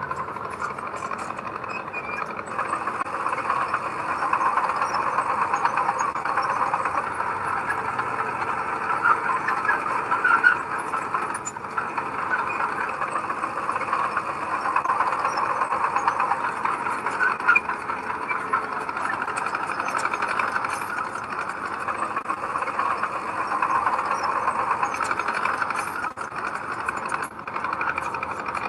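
Heavy earthmoving machinery running steadily: a diesel engine and machine noise at work.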